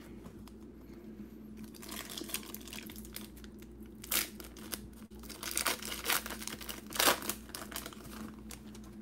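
An NBA Hoops trading card pack's wrapper being torn open and crinkled by hand. The crackling comes in irregular spurts, loudest twice: about four seconds in and again about seven seconds in.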